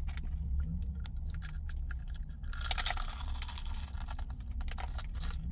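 Chewing and crunching a crispy battered Korean corn dog, with small scattered crackles over a low steady hum.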